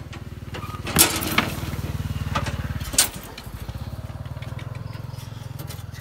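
A small engine idling steadily, with three sharp metal clanks from a wire cage as a dog is shut inside: two close together about a second in, and one about three seconds in.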